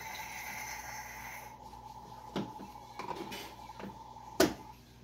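Plastic toy kitchen pieces knocking and clattering as children play: a few scattered clacks, the sharpest about four and a half seconds in, after a brief hiss at the start.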